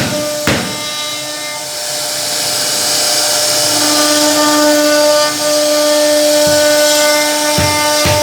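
CNC router spindle running with a steady high whine while the bit cuts into wood, a hissing cutting noise swelling in the middle. Sharp thumps in a steady beat sound near the start and again near the end.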